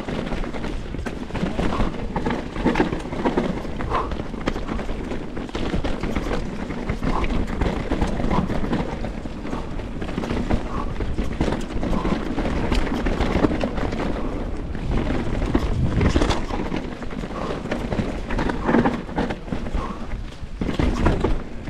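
Canyon Strive enduro mountain bike descending a rough downhill trail: continuous rattling of the bike and tyres over rocky ground, with frequent sharp knocks from impacts.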